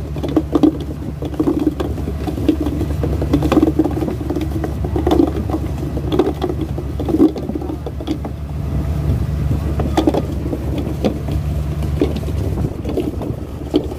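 A fishing boat's engine running steadily with the rush of the sea against the hull, overlaid by irregular knocks and rattles as the purse-seine net and its floats are paid out over the side.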